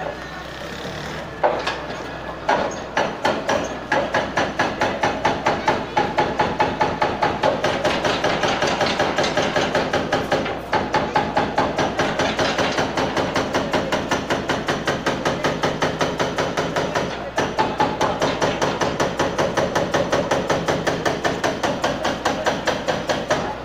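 Hydraulic breaker on a Hitachi excavator's arm pounding masonry in rapid, steady blows with a ringing metallic tone. The hammering settles into a constant rhythm about four seconds in and pauses briefly twice.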